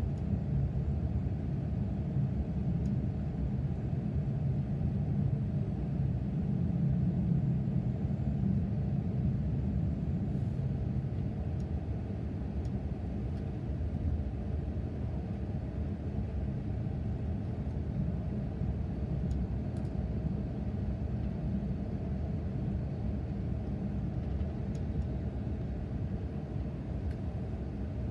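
An Akita Shinkansen Komachi E6-series train running at speed, heard from inside the passenger cabin: a steady low rumble of wheels on rails and running gear.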